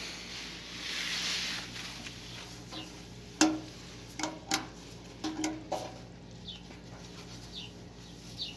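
Cloth rubbing and hand-handling noises on a motorcycle's painted fuel tank: a soft scrubbing hiss at first, then several sharp clicks and knocks in the middle. A few short high chirps come near the end.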